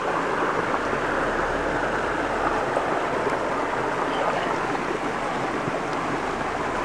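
Steady rush of shallow creek water running, washing around and through a plastic gold pan held down in the current.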